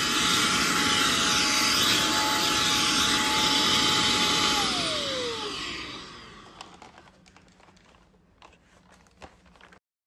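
Bagged upright vacuum cleaner running on a thin rug with a steady whine. About halfway through it is switched off: the whine falls in pitch as the motor winds down and the noise dies away. Only a few faint clicks remain.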